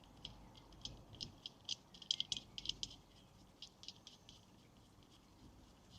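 Light, irregular clicking and rattling, a quick run of small clicks that is busiest in the first three seconds and thins out after about four seconds.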